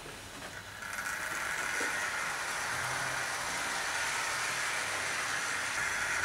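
00 gauge model GWR 5700 class pannier tank locomotive running with its train along the track, its electric motor and wheels making a steady running noise that picks up about a second in.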